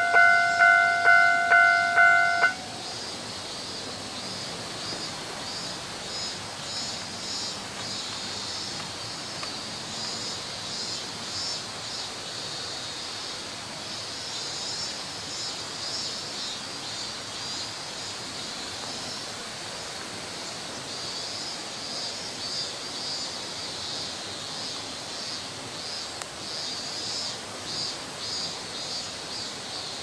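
Japanese railway level-crossing alarm ringing in an even beat of about two strokes a second, then cutting off suddenly about two and a half seconds in; the crossing shuts off without any train having come through. After that a steady high hiss with a fine pulsing texture continues.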